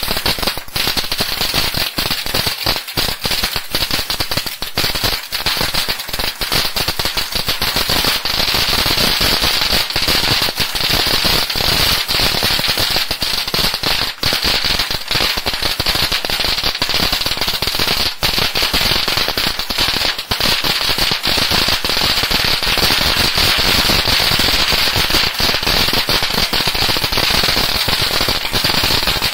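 Fisherman Fireworks FP4726 'Go Celebrate' ground firework burning, spitting sparks with a dense, unbroken crackle of many small rapid pops.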